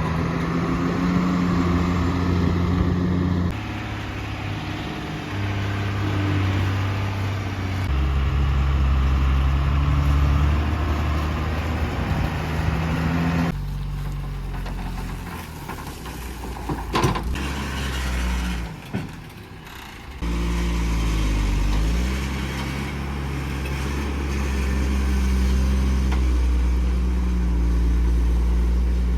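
Heavy diesel engine running under varying load, its revs stepping up and down repeatedly. The sound changes abruptly twice, about halfway through and two-thirds of the way through, with a quieter stretch between that holds a brief sharp clank.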